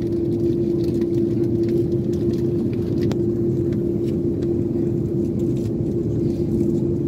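Jet airliner heard from inside the cabin while taxiing: a steady low engine rumble with one constant hum running through it, and a few faint rattles.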